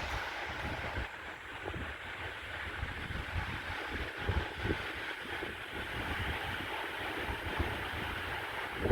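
Wind buffeting the microphone in uneven gusts over a steady rush of wind.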